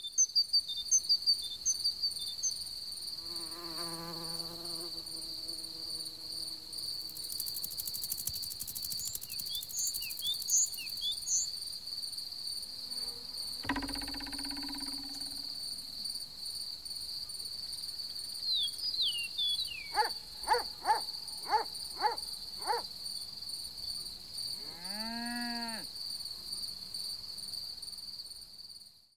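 Steady high cricket-like insect trill, with scattered chirps and calls over it: a wavering buzz about four seconds in, a single thud halfway through, a quick run of six short chirps, and a call that rises and falls near the end.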